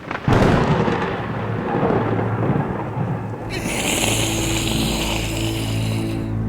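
A thunderclap about a quarter second in, rumbling away over several seconds above a low steady drone. A high hiss joins about halfway through and stops shortly before the end.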